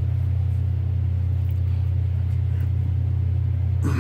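Steady low hum with a few faint light ticks.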